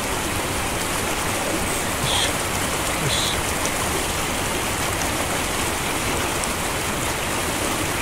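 Steady rush of a mountain stream's flowing water, with two brief high notes about two and three seconds in.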